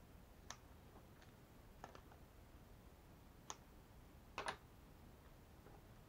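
Small scissors snipping short lengths of heat shrink tubing: a few quiet, sharp clicks a second or two apart, the loudest a double click about four and a half seconds in.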